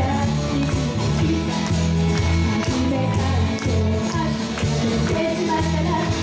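Live amplified pop-rock band: a woman singing into a microphone over electric guitars, with a heavy low end and a steady beat.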